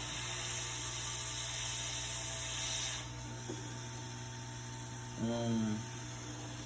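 A steady airy hiss for about three seconds that cuts off suddenly, over a constant electrical hum. A short murmured vocal sound follows near the end.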